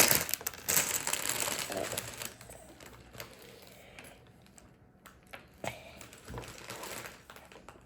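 Small plastic Lego pieces clicking and rattling as they are handled and pressed together. Dense rustling and clicking for the first couple of seconds, then scattered light clicks.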